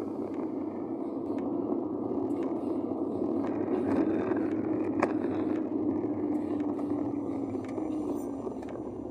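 Steady road and engine noise of a car driving, heard from inside the cabin, with a low drone that dips slightly near the end and a few faint ticks.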